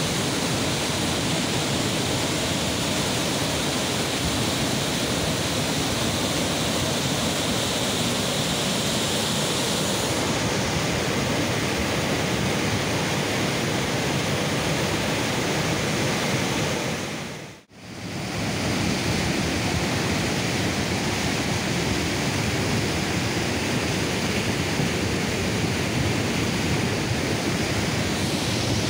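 A swollen, muddy river in flash flood rushing past close by: a loud, steady, dense noise of churning floodwater. The sound fades out briefly a little past halfway and comes straight back.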